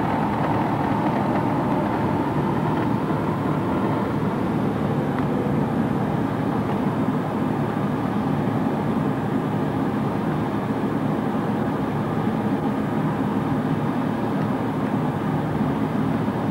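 Steady engine drone and running noise of a vehicle, heard from on board.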